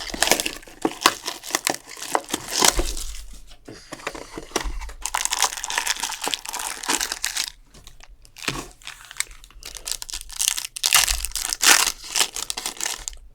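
Plastic wrapping crinkling and tearing as a trading card box and its packs are opened, in several bursts of crackle with short pauses between.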